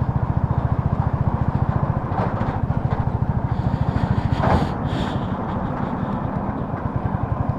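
Motorcycle engine idling steadily with an even, rapid pulse, and a brief higher-pitched sound about four and a half seconds in.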